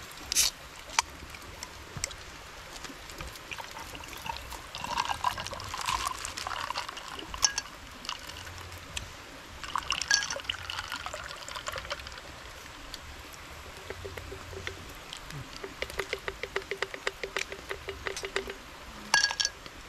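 Water pouring and trickling over a steady hiss, with scattered clicks and knocks and a quick run of ticks near the end.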